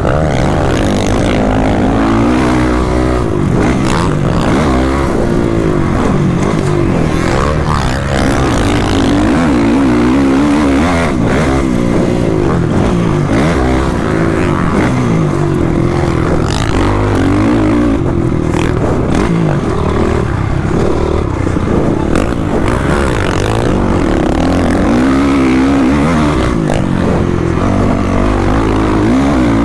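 Motocross dirt bike engine running hard on the track, its pitch rising and falling over and over as the throttle opens and closes through the corners and jumps. A few sharp clacks are heard along the way.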